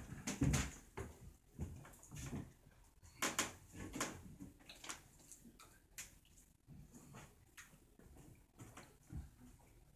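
Workshop handling noises around a large plaster dome mould: irregular knocks, bumps and scrapes from the wooden former and hands working the plaster, with shuffling footsteps. The loudest thump comes about half a second in.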